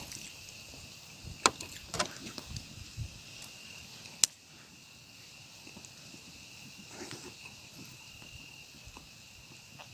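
Crickets chirring steadily at one high pitch, with four short sharp clicks in the first few seconds.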